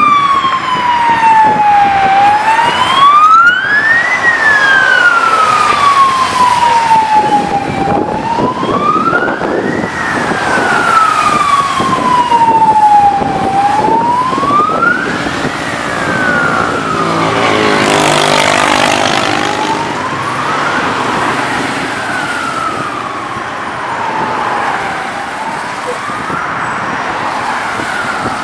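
An emergency-vehicle siren on a slow wail, rising and falling about every six seconds and growing fainter over the second half. About two-thirds of the way through, a car passes close by with a rush of tyre noise on the wet road, over the steady hum of slow traffic.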